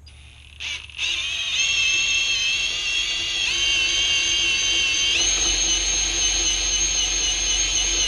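Cordless drill driving a scissor jack's screw. After a short blip, the motor whines steadily under load and steps up in pitch a couple of times.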